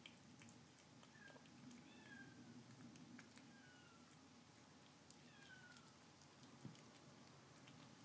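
Faint meowing of a mother cat outside: several short, falling calls, each under a second. Soft clicks of a kitten eating canned cat food from a bowl sound close by.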